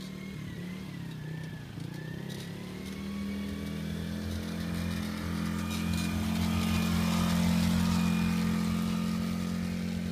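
Polaris Outlaw 50 youth ATV's small engine running at low speed as the quad rides around. It grows louder from about a third of the way in as the quad passes close by, then eases off slightly near the end.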